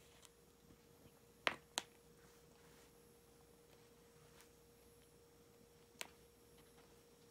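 Near silence with a steady faint hum at one pitch, broken by a few short clicks: two close together about a second and a half in, and one more about six seconds in.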